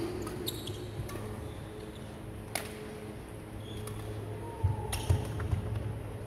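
Badminton rally: rackets striking the shuttlecock with sharp cracks every second or so, then a cluster of heavier thumps from footwork on the wooden court near the end, with a brief shoe squeak. A steady low hum underneath.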